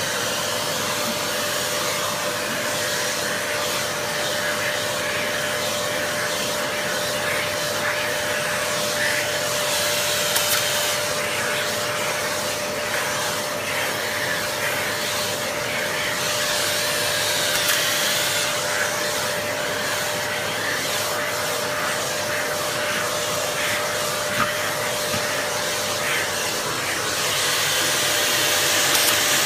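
Canister vacuum cleaner running with a pet-grooming brush nozzle on its hose, sucking loose hair from a dog's coat: a steady rush of air over a constant motor whine, growing hissier a few times as the nozzle moves.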